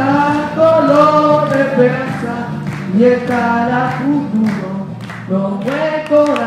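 Music with a group of voices singing a melody together.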